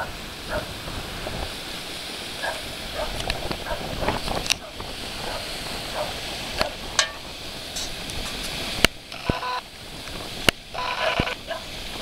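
Shetland sheepdog barking in short, high yips again and again at small waves washing onto a pebble beach, over a steady rush of surf and wind on the microphone. A few sharp clicks stand out, the loudest about three-quarters of the way in.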